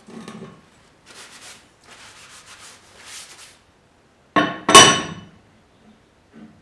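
Steel machine parts handled on a wooden workbench: a soft rubbing and sliding, then two sharp metal clanks with a brief ring about a third of a second apart as a steel strip is set down on the steel carriage plate.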